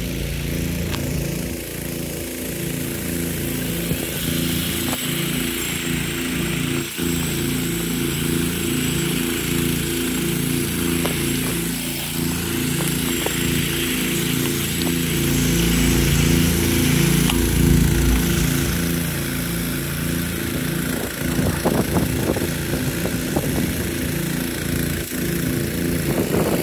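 Sime Big River turbine-driven rain gun throwing a full water jet from its 24 mm nozzle at about 40 PSI: a steady rushing hiss of spray over a steady low mechanical drone. A few sharp clicks come near the end.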